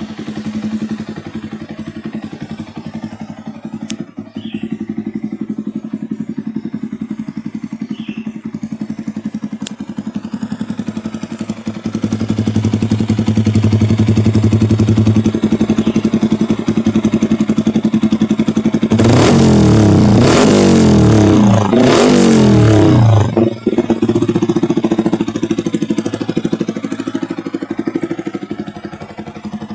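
Yamaha R15 v3's single-cylinder engine running through a Daytona aftermarket racing exhaust. It idles, holds a louder steady note for a few seconds about a third of the way in, then is revved in several quick rising and falling blips about two-thirds through before settling back to idle.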